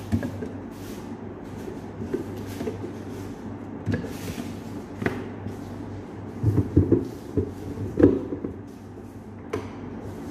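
A plastic jug and its lid knocking and clattering as a drink is poured into a large glass dispenser, with the loudest knocks about six to eight seconds in. A steady low hum runs underneath.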